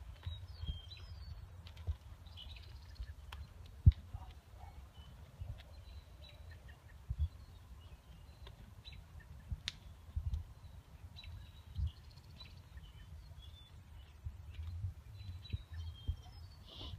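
Small birds chirping and calling in short scattered notes over a steady low rumble, with a few sharp knocks, the loudest about four seconds in.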